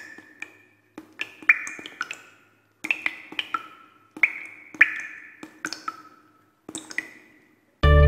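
Sparse plinking notes, each a sharp tap followed by a brief ringing tone that dies away, coming in irregular clusters of two or three with short gaps between. A faint low hum runs underneath.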